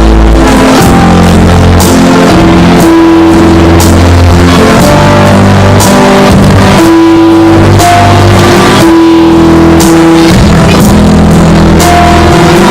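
Loud instrumental music with guitar, bass and a steady drum beat, playing held chords.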